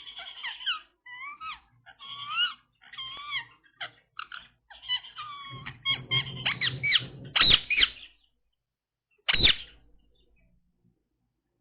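Indian ringneck parrot calling: a run of short squeaky calls that bend up and down in pitch, getting louder after about five seconds, then one sharp loud call about nine seconds in.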